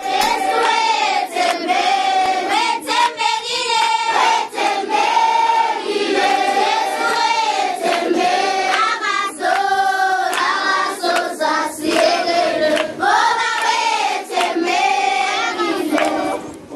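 A large crowd of schoolchildren singing together as a choir, unaccompanied, in long held phrases. The song ends just before the end.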